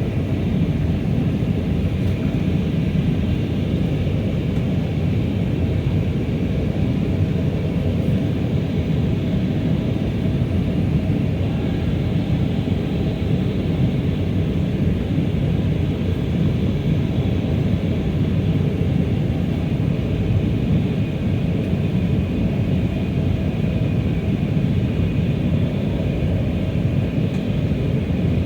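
Airbus A319 cabin noise in flight: a steady rumble of engines and airflow heard from inside the cabin, with a faint steady high whine over it.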